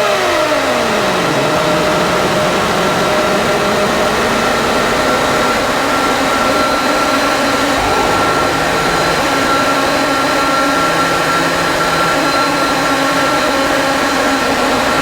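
Electronic drone from a Rucci Maximal Drone synth fed through an EarthQuaker Devices Data Corrupter and an Afterneath reverb. It is a loud, dense, hissing noise wash with a few steady high tones held over it, and a stack of tones sweeps down in pitch in the first second or so.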